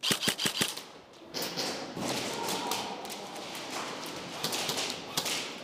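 A quick burst of about six sharp snaps from an airsoft gun in the first second, then several seconds of scuffling movement with knocks and clatter of gear.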